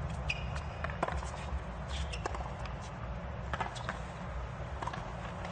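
Tennis ball struck by rackets and bouncing on a hard court during a baseline rally: a run of sharp hits and bounces about a second apart, with a brief shoe squeak near the start, over a low crowd hum.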